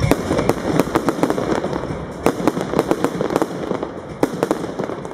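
Bon Fireworks 'Colourful Thunder Tail' firework cake firing: an irregular run of sharp bangs, about three or four a second, with a noisy hiss between them.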